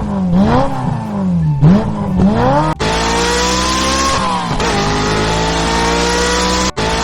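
Car engine revving up and down in several quick rises, then running at a steadier pitch that slowly climbs and dips, with a brief cut-out near the end.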